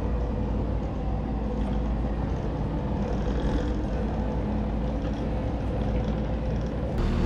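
Compact track loader's engine running steadily.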